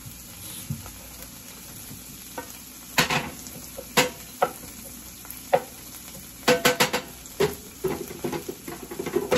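Broccoli sizzling in a nonstick skillet while a wooden spatula stirs it. From about three seconds in, the spatula knocks and scrapes against the pan in irregular clicks, which come more often in the last few seconds.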